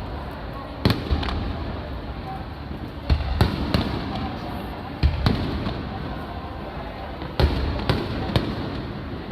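Aerial fireworks shells bursting overhead: a string of sharp booms with short echoing tails, coming in twos and threes every couple of seconds.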